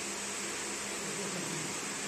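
Steady fan-like whirring hiss from a desktop fiber laser marking machine running while it marks stainless steel.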